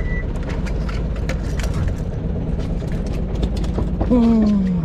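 A fishing boat's engine idling with a steady low drone, with scattered clicks and knocks from the rod and tackle. About four seconds in, a brief loud low tone that falls in pitch.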